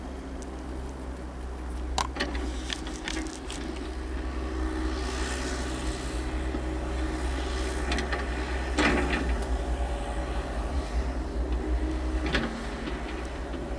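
Yanmar compact excavator's diesel engine running steadily, with sharp metallic knocks: a quick run of them about two seconds in, a louder one near the middle and another near the end.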